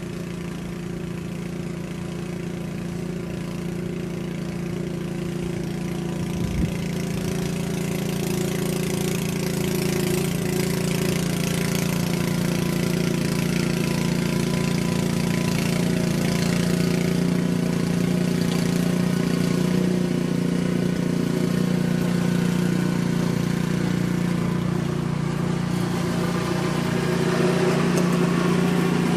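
An engine running steadily at an even speed, with a hiss that grows louder over the first ten seconds. A single knock about six and a half seconds in.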